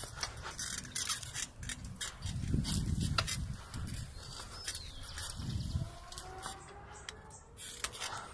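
Handheld-camera noise outdoors: scattered clicks and rustles, with two low rumbles of wind on the microphone, one about two and a half seconds in and a shorter one about five and a half seconds in.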